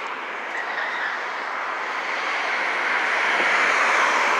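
Steady rushing road and wind noise of a moving car, heard from inside, growing gradually louder as it picks up speed.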